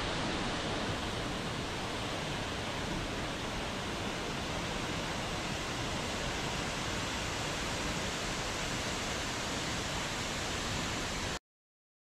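Tall waterfall plunging down a rock face: a steady rush of falling water that cuts off suddenly near the end.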